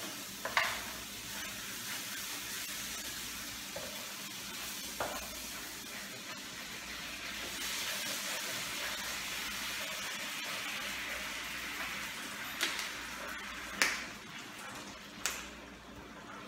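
Flour gravy sizzling and hissing steadily in a hot pan as it is stirred, with about five sharp knocks scattered through it.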